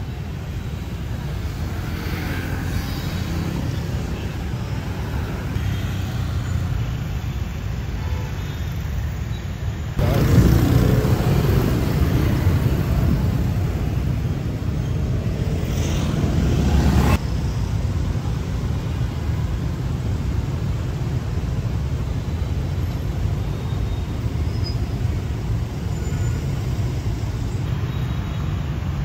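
Busy city street traffic: a steady rumble of cars and motorbikes passing. A louder stretch starts suddenly about ten seconds in and cuts off suddenly some seven seconds later.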